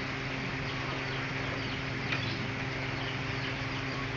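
Steady low background hum with faint bird chirps, and a single short click about two seconds in.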